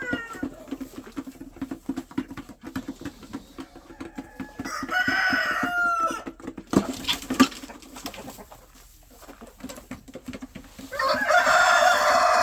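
A rooster crowing twice: one crow about five seconds in and a longer one starting near the end, with chickens clucking and a couple of sharp knocks in between.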